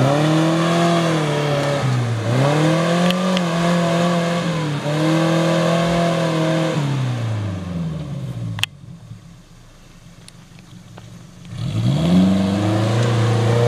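Suzuki Jimny SJ410's small four-cylinder engine revving up and easing off several times while driving offroad. A sharp click comes about eight and a half seconds in, followed by a few seconds much quieter, then the engine revs up again near the end.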